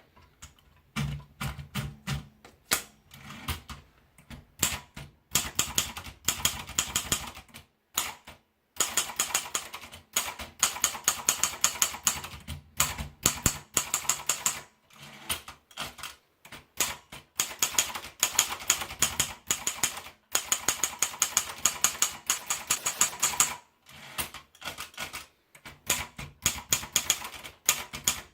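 Sperry Remington Ten Fifty typewriter being typed on: runs of quick, sharp key strikes in bursts of a few seconds, with short pauses between them.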